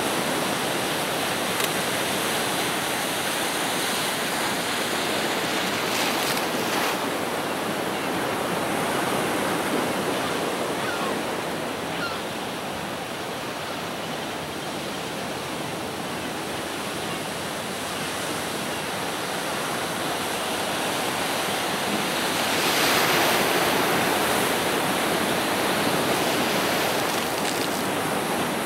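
Ocean surf breaking on rocks: a continuous wash of noise that swells louder about 23 seconds in.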